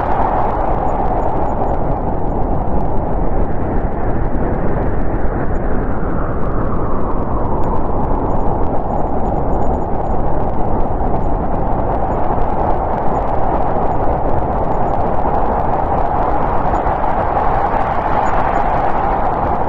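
Snowstorm wind blowing steadily as a dense, low rush with a howling band on top; the howl eases in the middle and swells again near the end.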